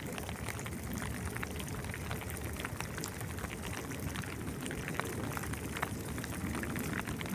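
Steady splashing and lapping of sea water, with many small scattered splashes.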